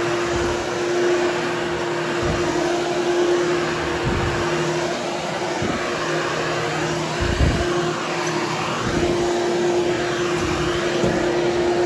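Hoover Hushtone vacuum cleaner running steadily as it is pushed over berber carpet to groom the pile, a constant motor hum with a few low thuds as it moves back and forth.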